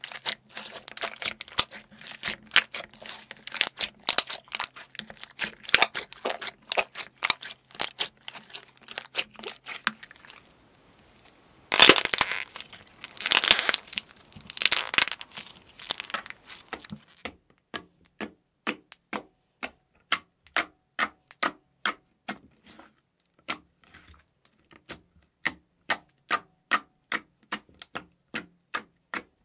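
Hand-played slime making wet clicks and pops: fast, dense popping as it is squished and pressed, then after a brief pause a louder burst of crackling and tearing as it is pulled apart, then single pops at about two a second as fingers poke into it.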